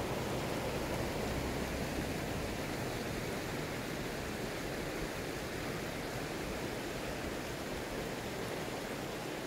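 The Inn river rushing over its stony bed, a steady rush of water that fades slightly toward the end.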